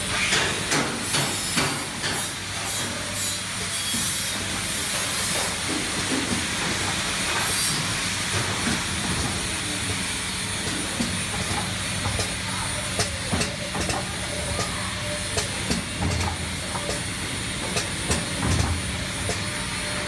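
Triangle nylon tea bag packing machine running: a steady hum and hiss, with repeated clicks from its cycling mechanism, thickest in the first few seconds.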